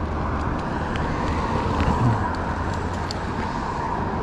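Steady road-traffic noise from a busy street, under a low, even rumble, heard while riding slowly along the sidewalk on an electric scooter.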